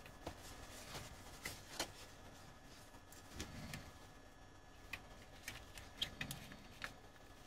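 Faint, scattered clicks and taps of a small plastic video-light housing being handled and fitted together, with a few soft knocks and a quick cluster of clicks near the end.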